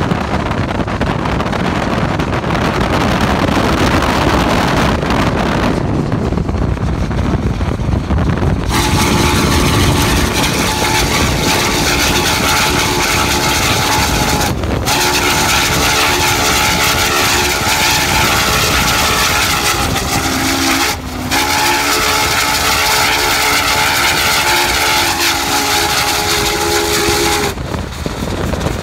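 Wind and road noise from a car pacing the train, then about nine seconds in the steam whistle of Union Pacific 844, a 4-8-4 steam locomotive, sounds a chord in long blasts with two brief breaks, stopping shortly before the end.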